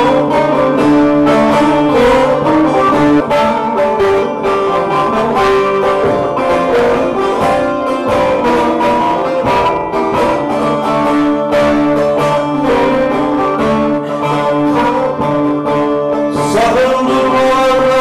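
Bağlama music for a semah dance: quick plucked notes over a held low drone, with a voice coming in singing near the end.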